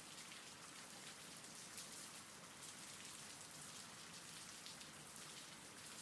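Faint, steady rain: an even hiss with light ticks of drops.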